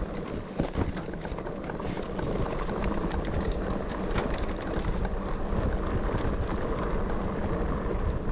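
Mountain bike riding over a rough dirt forest trail: tyre noise and rattling from the bike, with a steady low rumble and many small clicks and knocks.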